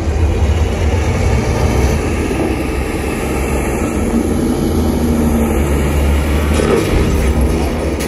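Film sound effects of heavy vehicles, played loud through Klipsch home-theater speakers and picked up in the room: a steady rumbling engine-and-road din with deep, continuous bass.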